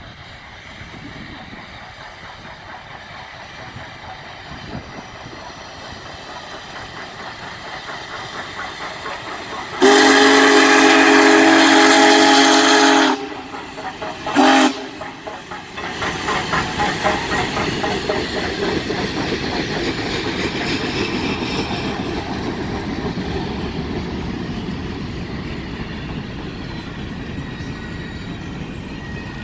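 Union Pacific Big Boy No. 4014, a 4-8-8-4 articulated steam locomotive, growing louder as it approaches, then sounding its steam whistle in one long blast about ten seconds in and a short toot a second later. The locomotive and its passenger cars then roll past with clickety-clack from the wheels, slowly fading.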